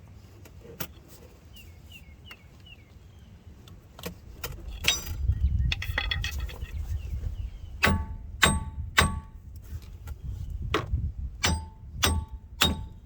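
Hammer blows ringing off a wheel hub assembly as it is knocked loose from the knuckle: a clatter of metal about four seconds in, then a run of sharp ringing strikes about half a second apart, with short pauses.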